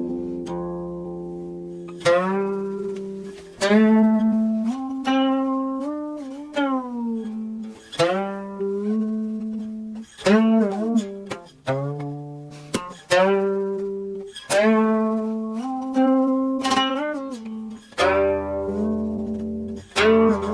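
Background music played on a plucked string instrument, a slow melody of single notes, each struck and then fading, with some notes bent and sliding in pitch.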